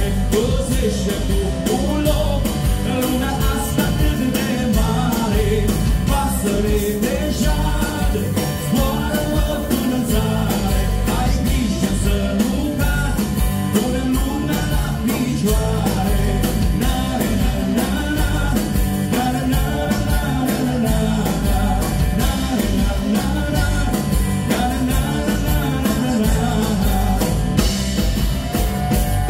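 A rock trio playing live: acoustic guitar, electric bass and drum kit, with a lead voice singing over them.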